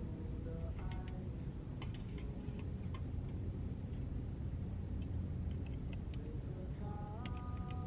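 Outdoor ambience: a steady low rumble with scattered faint ticks. Near the start and again near the end come a few faint held tones that slide up and then level off.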